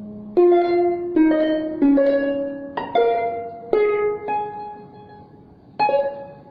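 Burmese arched harp (saung gauk) played solo. A slow line of single plucked notes each rings on and fades, and one last note near the end dies away.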